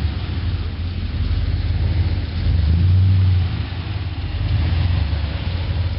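Chevrolet Suburban's 454 big-block V8 pulling the truck up out of a muddy rut, running steadily under load and revving up a little before halfway, then easing off.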